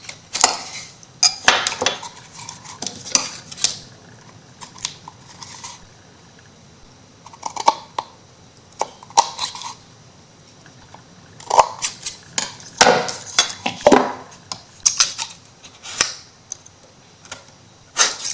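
Kitchen knife scraping and clicking along the edges of an MDF craft piece, trimming them in irregular strokes with short pauses between bursts.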